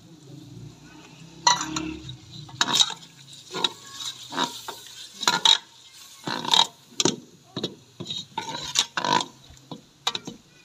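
A metal spoon stirring potatoes in an aluminium pressure-cooker pot. It makes a dozen or so irregular clinks and scrapes against the pot, starting about a second and a half in.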